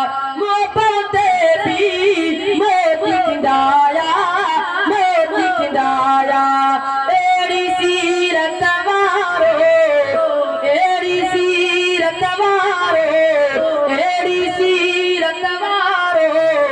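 A boy singing a Sindhi naat (devotional praise song) into a microphone, unaccompanied, in long ornamented lines that bend up and down in pitch.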